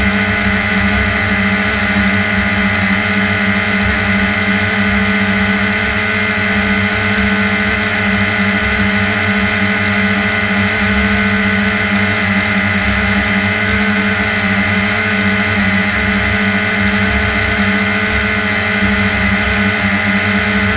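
Small drone's electric motors and propellers humming steadily in flight, heard close up from the onboard camera, with a constant low hum and a high whine that hold the same pitch throughout.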